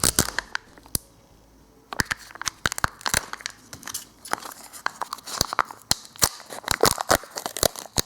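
A surprise egg's wrapper being crinkled and torn: a run of irregular sharp crackles, with a short pause about a second in.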